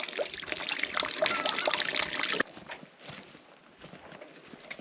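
Water trickling and pouring for about two and a half seconds, then cutting off abruptly to a much quieter background with scattered faint ticks.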